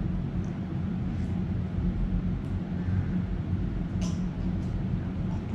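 Steady low hum with a few faint light clicks and taps. The brightest tap comes about four seconds in, as a drinking glass is raised to the lips.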